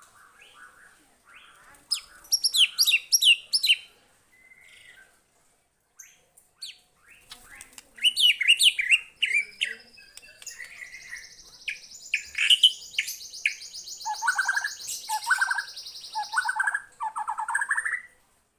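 White-rumped shama (murai batu) singing a loud, varied song of rapid whistled and chattering phrases. Past the middle comes a long, high, buzzy trill, overlapped near the end by a run of harsher, lower rasping notes.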